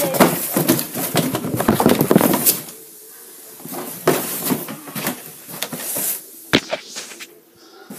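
Handling noise: rustling, scraping and knocks as the recording camera is jostled about, busiest in the first two and a half seconds, with a sharp click about six and a half seconds in.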